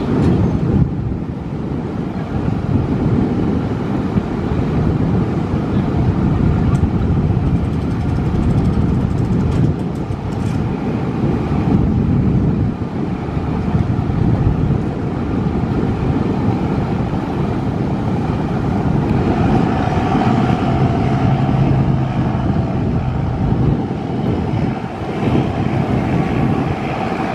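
Wind buffeting the microphone as a low, gusting rumble, with an engine running underneath; a steady engine hum stands out briefly about two-thirds of the way through.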